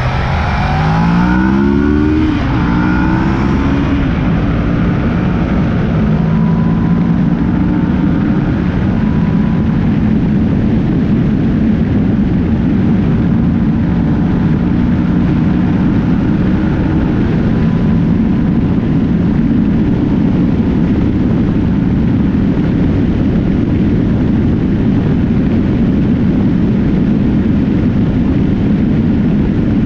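Sport motorcycle engine accelerating hard, its pitch climbing in steps as it shifts up through the gears over the first several seconds, then running steadily at highway speed. Heavy wind rush on the bike-mounted camera's microphone.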